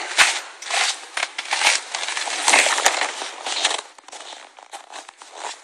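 Rustling and crunching as someone walks out through a tent doorway onto snow: tent fabric brushing past and footsteps crunching in cold snow. It is loud and busy for the first four seconds, then fainter.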